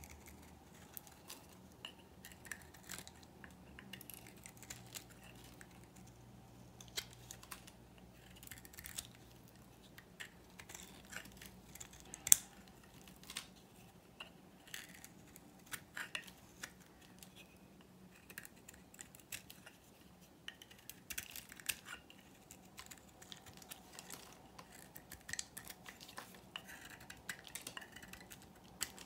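Knife blade shaving thin curls off a bar of dry, painted and varnished soap: a run of crisp, irregular crackling clicks, with one sharper snap about twelve seconds in.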